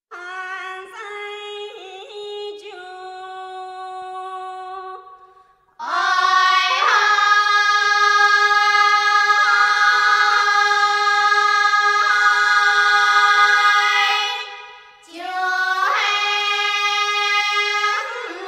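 Dong grand song (Dong Ka Lau), a cappella women's chorus. Soft held notes open it, and about six seconds in the full chorus comes in louder, holding long notes over a steady low sustained line. There is a short breath break near the end before the voices come back in.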